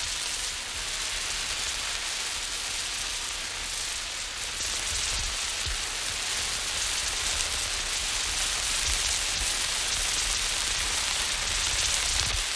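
Burning emergency road flare being moved about. It gives a steady, bright hiss, with a low rumble underneath that shifts as it moves.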